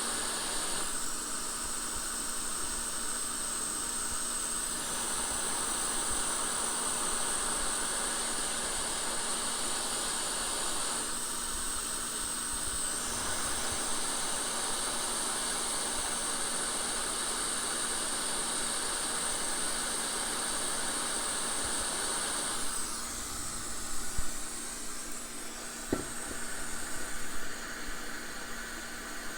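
Steady hiss of air blowing from electronics-rework bench equipment, with a high steady tone over it that weakens twice for a few seconds. A few soft knocks and a louder stretch come near the end.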